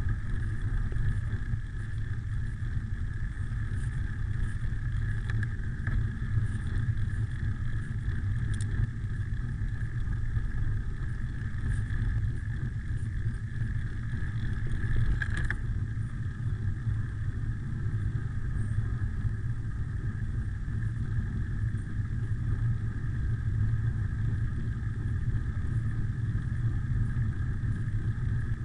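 Wind buffeting the microphone and tyre rumble from a bicycle coasting downhill on a paved road, with a faint steady high whine through it and a short click about fifteen seconds in.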